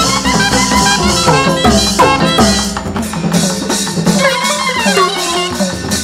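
Burmese hsaing waing ensemble music led by the pat waing, a circle of tuned drums: quick struck drum notes that bend downward in pitch, in a lively rhythm over steady high percussion.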